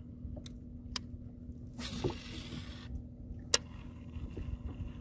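Baitcasting rod and reel being handled: scattered small clicks, a hissing rush lasting about a second starting about two seconds in, and one sharp click about a second later, over a steady low hum.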